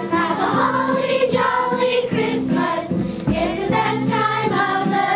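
Children's choir singing a holiday carol.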